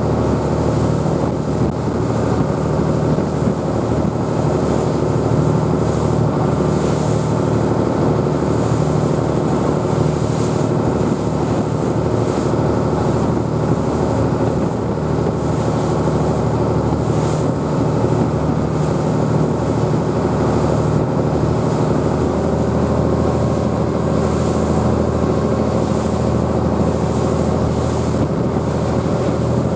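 Engine of a small fishing ferry running steadily under way, a constant low drone, with wind and water noise over it.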